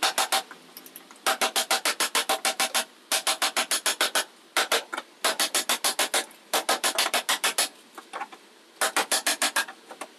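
Panel beating on an Alto car's sheet-steel rocker panel: rapid blows of a steel hand tool, about eight a second, each with a metallic ring. They come in bursts of about a second with short pauses between, as the dent in the sill is worked out.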